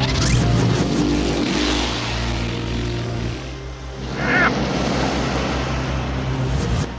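A cartoon vehicle engine sound effect, heard as a loud rushing noise over background music and played backwards. It cuts off near the end, and a brief scrap of a voice comes through at about four seconds.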